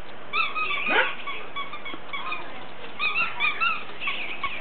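A dog's squeaky toy squeaking in quick runs of short, high squeaks, with one longer rising squeal about a second in.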